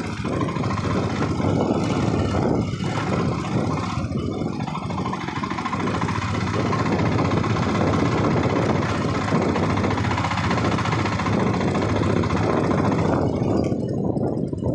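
Motorcycle engine running steadily during a ride, mixed into a dense, steady rushing noise.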